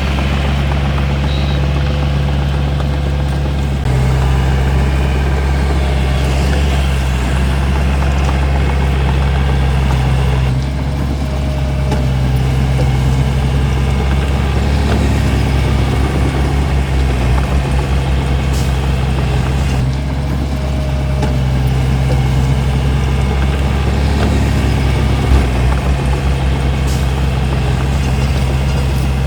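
Hitachi DX45M bulldozer's diesel engine running steadily under work, its note shifting a few times as the load or throttle changes.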